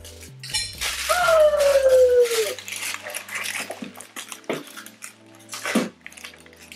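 People gagging and retching at a revolting mouthful: a long strained groan that falls in pitch about a second in, then short sharp gags and coughs into tissues.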